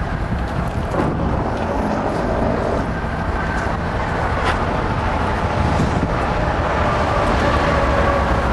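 Steady low rumble of truck engines running, with a few faint clicks.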